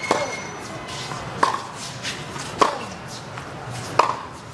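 Tennis ball bounced on a hard court in a pre-serve routine: four sharp thuds about a second and a quarter apart.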